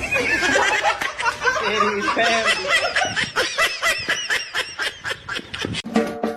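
People laughing in quick repeated bursts. Music starts near the end.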